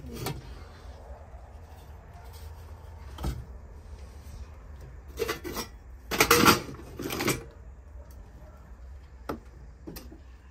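Knocks, clinks and scrapes of old metal and crockery items being handled and shifted while rummaging through junk, loudest in a cluster about six to seven seconds in.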